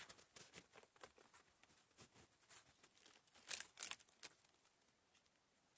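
Faint crackling and snapping of weathered, resin-soaked fatwood splinters being pried and broken off a dead stump by hand. The sharpest cracks come about three and a half to four seconds in.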